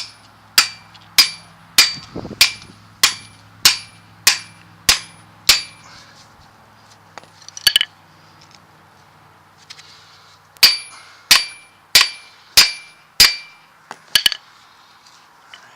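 A hammer striking metal in steady blows with a ringing clang, driving the new U-joint's bearing cups into the drive shaft yoke: a run of nine blows about every 0.6 s, a pause, then five more and a quick double tap.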